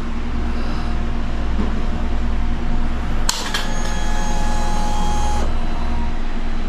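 KTM Duke 390 motorcycle being readied to start: a steady low hum, with a higher mechanical whine joining about three seconds in and stopping about two seconds later, before the engine fires.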